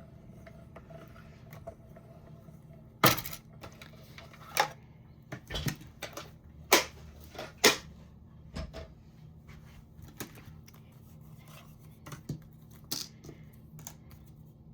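Irregular clicks and knocks of cutting plates, a steel die and cardstock being cranked through and handled in a small manual die-cutting machine, over a faint steady hum.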